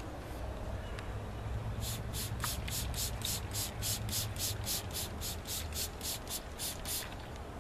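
Hand trigger spray bottle squeezed over and over, each pump a short hissing spray of mist, about four a second, starting about two seconds in and running for around five seconds.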